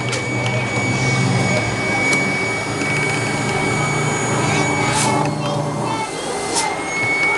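Steady, loud background noise with a constant high-pitched whine and a low hum that drops away about six seconds in, faint distant voices, and a couple of sharp knocks near the end.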